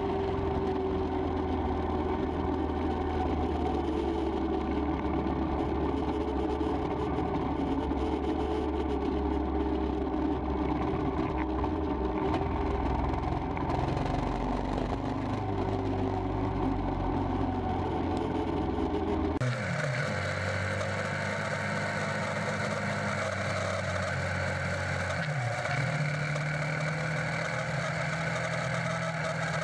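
Royal Enfield Himalayan's single-cylinder engine running while riding in traffic, with wind and road noise on the bike-mounted microphone. About two-thirds of the way through, the sound changes abruptly to a thinner engine hum, with less of the deep low end.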